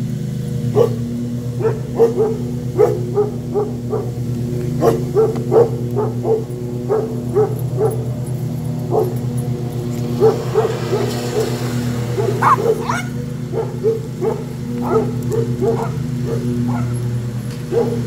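Dogs barking in a long run of short barks, one or two a second, at a lawnmower. Under the barks is the lawnmower's engine, a steady low drone.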